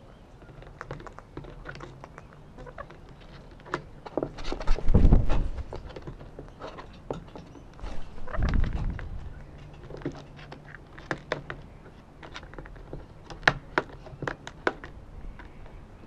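Sulphur-crested cockatoos' beaks clicking and cracking seeds and tapping on the wooden board and the plastic seed box. Two loud low rushes come about five and eight and a half seconds in, the second from a cockatoo's wingbeats as it flies off close over the camera.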